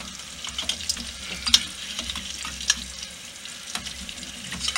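Hot oil sizzling around frying bannock dough in a small aluminium saucepan, with sharp crackling pops every second or so. A metal spoon scrapes and knocks in the pan as the dough, a little stuck to the bottom, is worked loose for its first flip.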